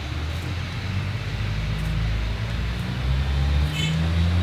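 A motor engine running with a low, steady hum that grows gradually louder.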